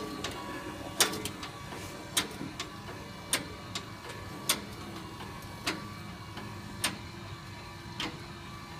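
Deines mower's engine running steadily, with a sharp click repeating about once a second.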